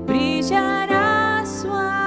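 A woman singing a worship song into a microphone, accompanied by chords on a Korg Kross keyboard. Her voice glides up in the first half second, then holds long, steady notes.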